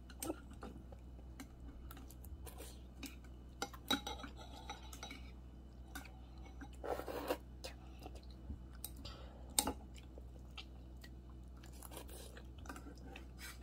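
Metal chopsticks clicking and scraping against a ceramic bowl as a child eats noodles, in scattered light clinks. There is a short slurp of a noodle strand about seven seconds in.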